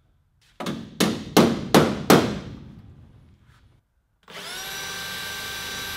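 Five sharp knocks in quick succession, then a cordless drill spins up and runs with a steady whine, drilling rivet holes through an aluminium door sill.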